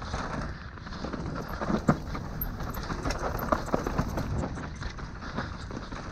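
Trek Session 9.9 downhill mountain bike ridden fast over a rough dirt trail: a steady rumble of tyres on dirt with constant rattles and knocks from the bike, and one sharper knock about two seconds in.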